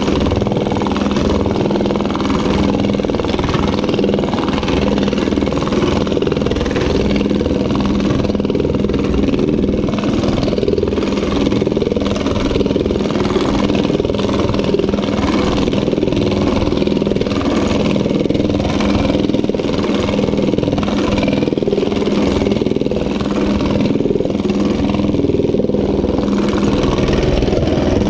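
Power hammer running without a break, its high-crown nylon-topped die rapidly striking a sheet-metal panel as the panel is shaped into a dome.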